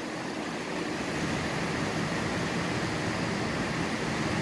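Steady rushing of a flood-swollen river running fast over rapids, a little louder and deeper from about a second in.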